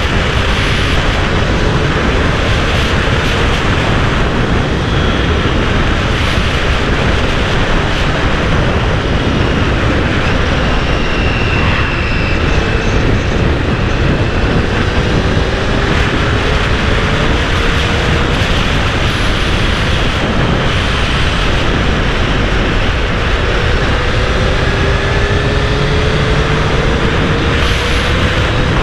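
Wind rushing over the microphone while riding a 2008 Honda CBR1000RR motorcycle. Under the wind is the bike's inline-four engine, whose note climbs slowly three times as it gains speed.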